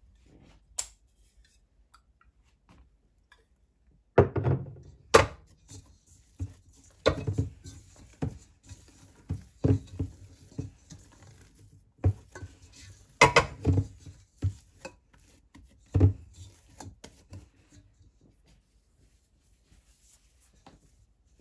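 Irregular knocks and thumps of food-preparation work on a kitchen surface: about a dozen sharp strikes with a dull low thud between about four and seventeen seconds in, then only faint handling noise.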